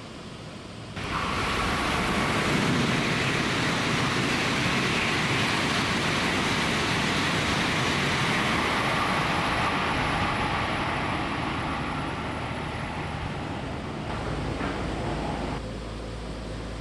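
Tokaido Shinkansen train passing through the station at high speed. A loud rush of rail and air noise starts abruptly about a second in, holds for around nine seconds, then fades away.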